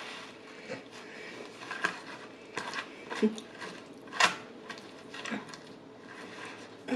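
Close-up eating sounds: wet chewing and smacking of saucy pasta, with sharp clicks and taps about once a second and a short closed-mouth hum of enjoyment near the middle.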